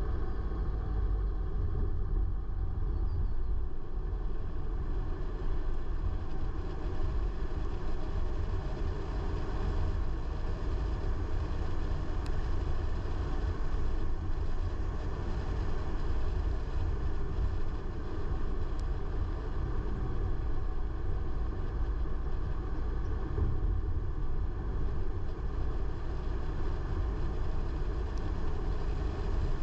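A car driving along at a steady pace: a continuous low rumble of engine and road noise that holds even throughout.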